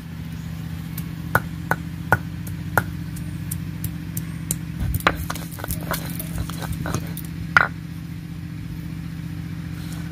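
Ginger being ground into paste: irregular sharp knocks and clatter, one or two a second, the strongest about three-quarters of the way through. Under them runs a steady low hum.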